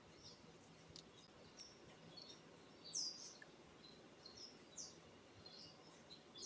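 Near silence with faint, scattered high-pitched bird chirps, the loudest a short falling call about three seconds in.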